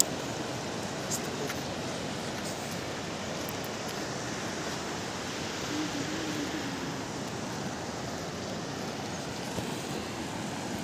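Fast-flowing mountain river rushing over stones: a steady, even rush of water.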